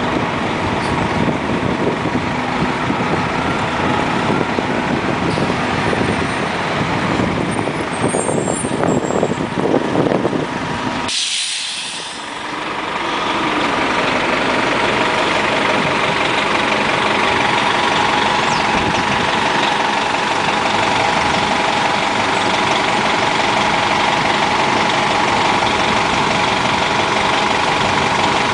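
Diesel engines of NovaBus RTS-06 city buses (Detroit Diesel Series 50) running in close street traffic, with a short sharp hiss about eleven seconds in. After that, a steady engine drone with a held whine close by.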